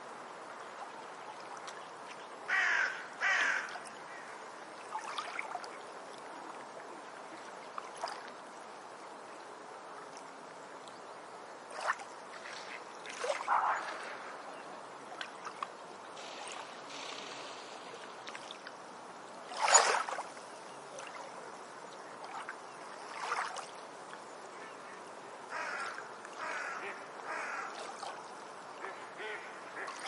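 Beach ambience: a steady wash of waves, with birds calling now and then at irregular intervals, the loudest call about two-thirds of the way through.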